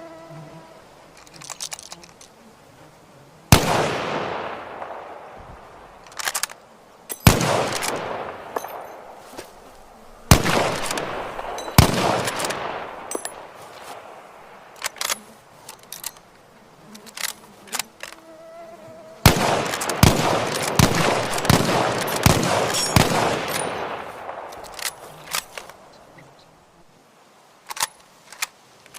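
Carcano rifle shots dubbed with a grenade-launcher sound effect: about a dozen sudden blasts, each fading out in a long noisy tail, with sharp clicks between them and a quick run of shots past the middle.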